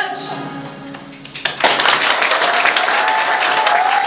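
The last sung chord fades away, then about a second and a half in the audience breaks into applause. A long, high, wavering note is held over the clapping near the end.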